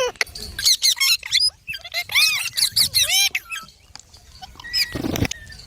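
Baby green parrots chirping and squawking in quick runs of short, high, arching calls, several overlapping in the first few seconds. A short muffled thud comes about five seconds in.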